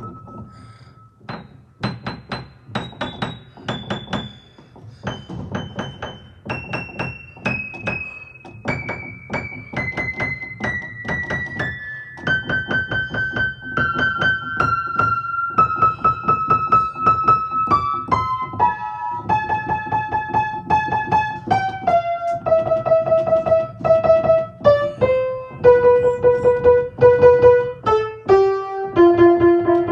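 Piano being played: a melody of held notes that steps slowly downward in pitch over fast repeated notes, growing louder in the second half.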